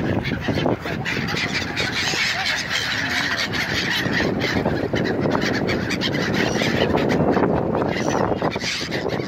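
A large flock of gulls calling over and over, many cries overlapping, over a steady low rumble.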